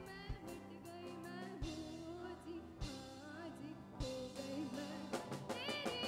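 Live rock band playing: electric guitars, bass guitar and drum kit, with a drum hit about every second and a wavering melody line over the band.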